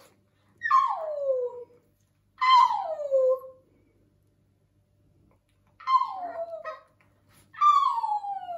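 Chihuahua howling: four long howls, each falling in pitch, with short pauses between.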